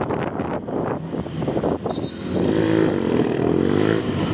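Adventure motorcycle's engine pulling away and riding the cone course in short bursts of throttle. About two seconds in, its pitch starts rising and falling with each blip.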